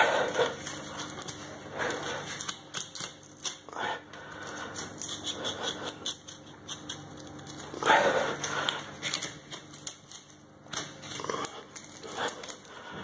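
Boning knife cutting and scraping through cartilage and bone to free a veal breast's sternum, with irregular clicks and taps as the blade meets bone and the plastic cutting board, and meat being handled.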